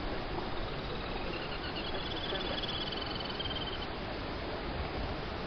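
Steady rushing noise of wind and surf. Over it, a faint rapid high-pitched trill starts about half a second in and stops before four seconds.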